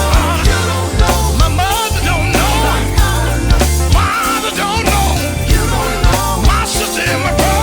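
Gospel group singing with a live band: a lead voice over a heavy bass line and a steady drum beat.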